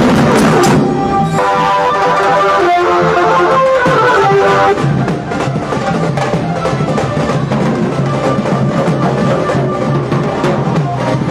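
Loud procession music with drums beating throughout. A tune of held notes plays over the drums from about one second in, then breaks off near the five-second mark, leaving dense, fast drumming.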